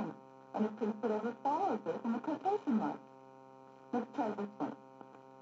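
A man's voice from an old film soundtrack, played back as low-fidelity mono audio by a TRS-80 Model I, speaking in two stretches with a pause a little before the middle. A steady electrical hum runs underneath.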